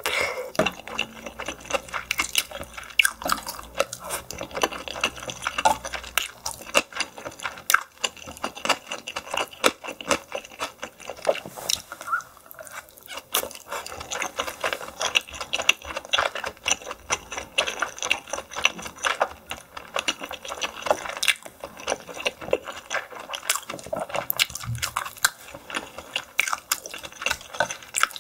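Close-miked wet chewing and mouth sounds of someone eating steamed yellow stingray, a dense run of small sharp wet clicks.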